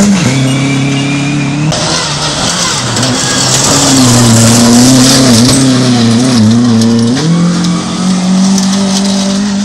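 Rally cars driven hard on a gravel stage: engines at high revs, the pitch wavering with throttle and gear changes, over a hiss of tyres on loose gravel. The sound jumps twice as separate passes are cut together.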